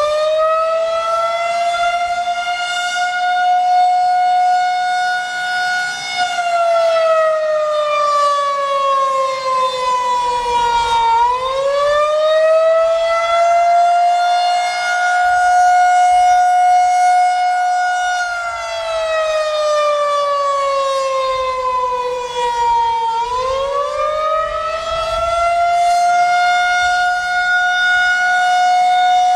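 Federal Signal 2001-130 electromechanical outdoor warning siren sounding the attack signal: a loud wail that rises in pitch, holds at the top for a few seconds, then slowly falls, about three times. Its rotating horn makes the loudness swell and dip as it sweeps around.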